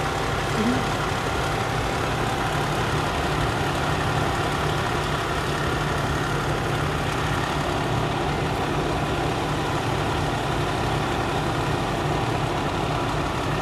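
Fire engine idling with a steady, unbroken low hum.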